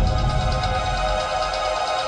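Background music: a held, sustained chord with no beat.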